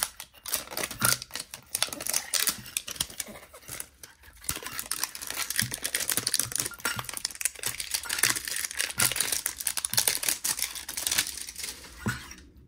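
Clear plastic wrapping crinkling and tearing as it is peeled off a metal Poké Ball tin, a dense run of small crackles with a brief lull about four seconds in.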